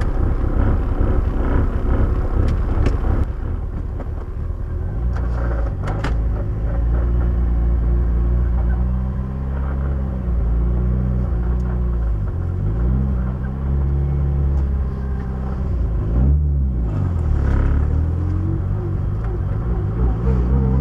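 Car engine running under way, its pitch climbing and then dropping back several times as it works through the gears, over a low rumble.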